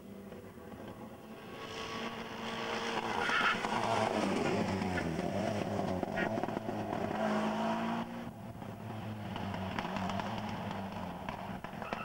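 Rally car engines at high revs as the cars approach and pass at speed, the pitch rising and falling with throttle and gear changes. Loudest in the middle, dropping away after about eight seconds.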